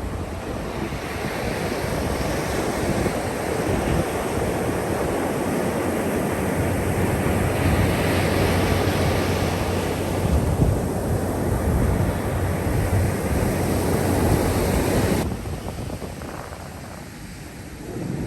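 Sea waves washing onto a beach, with wind buffeting the microphone. The sound drops away suddenly near the end to a quieter stretch.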